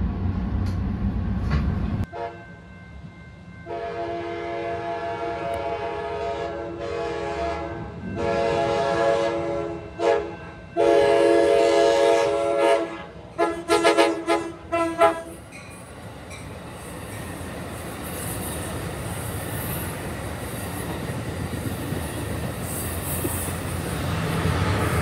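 Amtrak train's multi-chime air horn sounding a series of long blasts and then several quick short ones. After that the train's rumble and rail hiss build as it approaches. A loud low rumble from another passing train cuts off about 2 seconds in.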